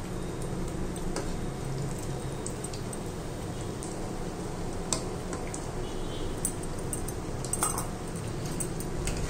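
Chhena patties deep-frying in oil in an iron kadai, a steady sizzle, with a couple of light clicks of a metal spatula against the pan about halfway and near the end.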